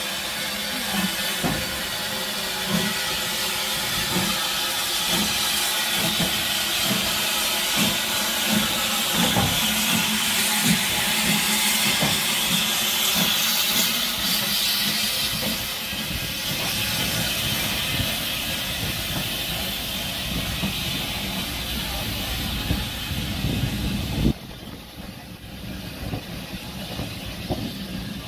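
1940 W.G. Bagnall saddle tank steam locomotive hissing loudly with steam as it moves off with its train, with irregular low thumps under the hiss. About 24 seconds in the hiss cuts off sharply, leaving a quieter rumble and clicking of carriages rolling past.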